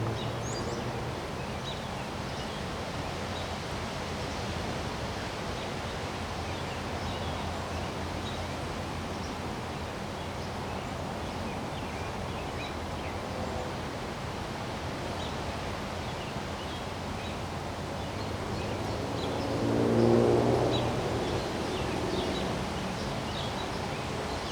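Wind blowing outdoors: a steady rushing noise with leaves rustling and short, faint chirps scattered through, and a louder swell about twenty seconds in.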